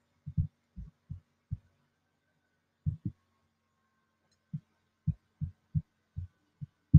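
Soft, dull clicks of a computer mouse, about fifteen at irregular spacing with a gap of a second or so in the middle, over a faint steady hum.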